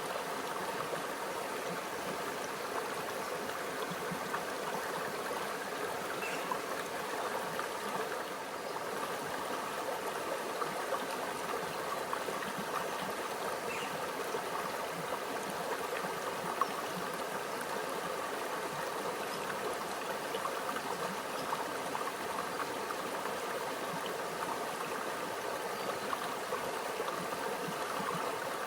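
Small stream flowing steadily over rocks, with a continuous gentle babble of water.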